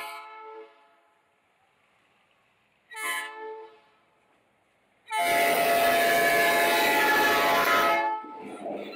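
Diesel freight locomotive's multi-tone air horn sounding for a level crossing. The tail of one blast comes at the start, a short blast about three seconds in, and a long loud blast from about five to eight seconds in as the locomotive nears. After that comes the rumble of the locomotive coming alongside.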